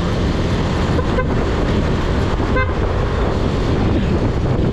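Steady wind and road noise from a scooter being ridden, with two short horn beeps, a faint one about a second in and a clearer one about two and a half seconds in.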